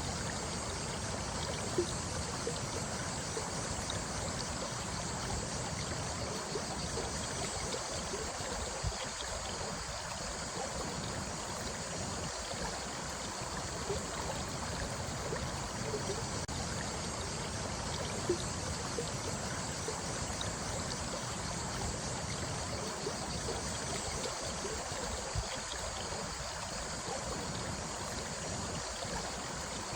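A stream of running water, a steady babbling with small splashes and trickles now and then.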